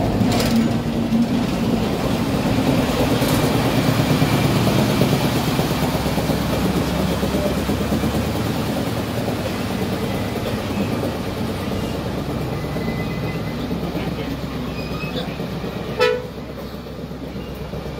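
Heritage diesel train engines running as the train moves along the platform, the rumble slowly fading. A brief horn toot sounds about sixteen seconds in.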